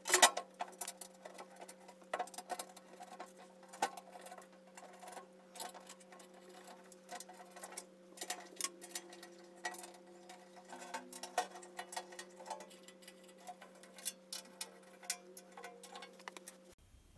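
Irregular small clicks and taps of the table saw's sheet-metal side access panel being fitted and screwed back onto the cabinet. A faint steady hum lies underneath.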